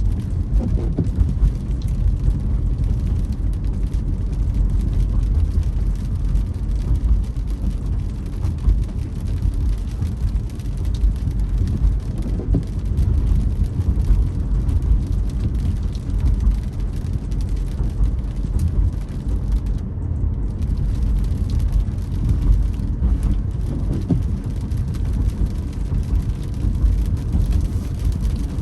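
A car driving on a wet road, heard from inside the cabin: a steady low rumble of road and engine noise with a light hiss of rain.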